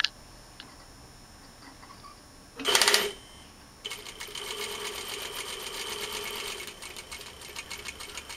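Juki industrial sewing machine: a brief loud burst about two and a half seconds in, then from about four seconds in the machine sews steadily with a rapid, even stitching rhythm.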